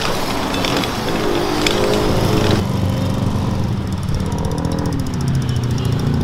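A small engine running steadily, its tone changing about two and a half seconds in.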